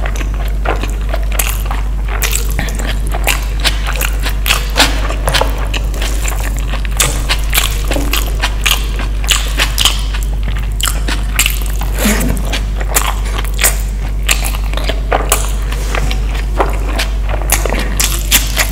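A person eating close to the microphone: chewing, with many short sharp mouth clicks and smacks scattered through, over a steady low hum.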